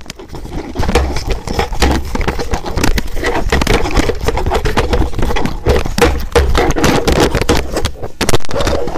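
Electric countertop blender running loudly, a rough grinding with rapid clattering, starting abruptly.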